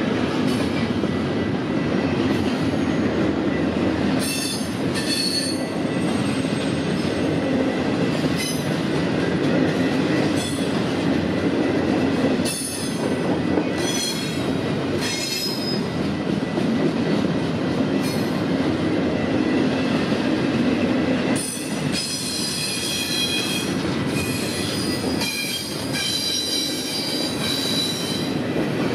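Freight train rolling past with a steady rumble of wheels on rail. High-pitched wheel squeal comes and goes several times, most strongly in the second half.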